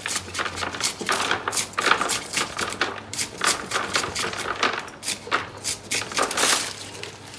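Kitchen knife slicing quickly through a hand-held bundle of sweet potato leaf stems, a rapid, uneven run of crisp cuts, several a second.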